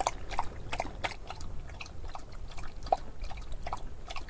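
A dog lapping water from a plastic bowl: a steady run of quick, wet laps, about three a second.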